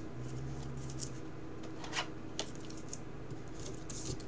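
A trading card and a clear plastic card holder rubbing and scraping as the card is handled and slid into the holder: faint rubbing with a few brief scrapes about two seconds in and again near the end.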